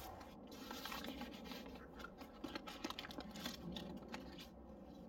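Faint crinkling, light clicks and scrapes of plastic bags, bowls and a plastic cup being handled while flour is scooped from its bag. The handling stops about four and a half seconds in.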